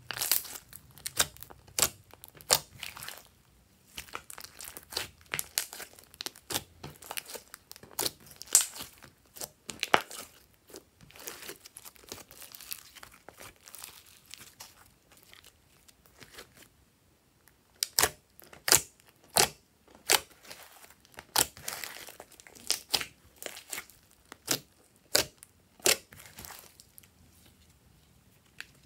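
Hands squeezing, stretching and folding glossy slime, making a run of sharp, wet clicks and pops. The popping thins out briefly about halfway through, then comes back as louder single pops roughly every half second to second.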